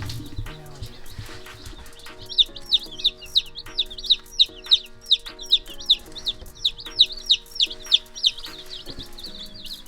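Baby chicks peeping, a quick run of short, high, falling peeps at about three a second that starts about two seconds in, over background piano music.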